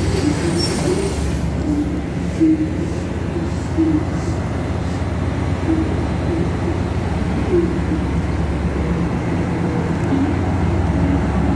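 Diesel engines of a Taiwan Railways DR2800 diesel multiple unit idling while it stands at the platform: a steady low drone in the underground station.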